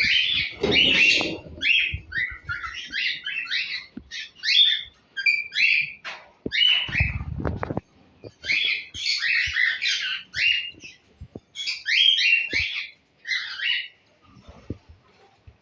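Cockatiels chirping: many short, rapid calls with brief pauses between bursts, along with scattered small knocks and a low rustle about seven seconds in.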